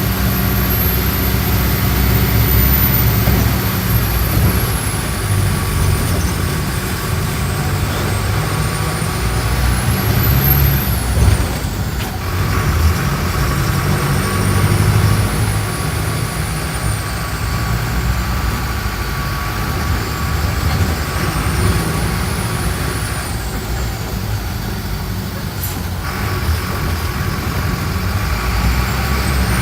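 Mercedes-Benz OF-1417 bus's diesel engine running as the bus drives, its low note shifting in pitch several times through the stretch, with a faint high whine rising and falling above it. A brief louder sound about eleven seconds in.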